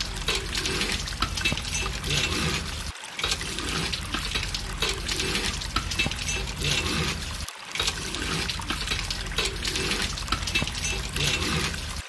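Small stream of water trickling and splashing, as from a miniature hand pump or pond in a model diorama, broken by two abrupt cuts about 3 and 7.5 seconds in.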